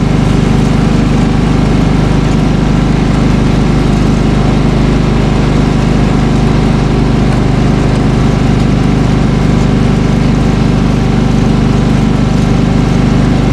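Small engine of a snow-clearing machine running steadily at an even speed.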